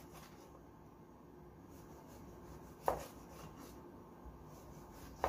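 Chef's knife slicing faintly through a stretch-film-wrapped homemade sucuk on a plastic cutting board, with one short, sharp click about three seconds in.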